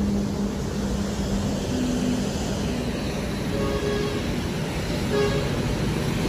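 Steady road-traffic noise with a car engine idling at first, a Kia Carens, and two short horn toots in the middle.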